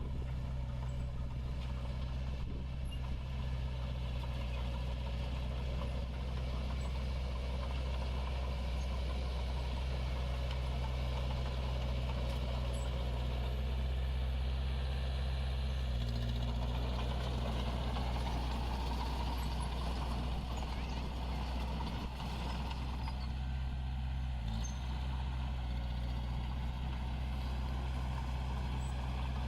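Heavy diesel engine of earthmoving machinery running steadily under work, its tone shifting about halfway through.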